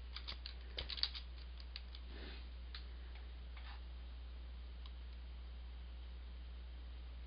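Computer keyboard keystrokes: a quick cluster of key clicks in the first second or so as a short command is typed and entered, then a few scattered single clicks, over a steady low hum.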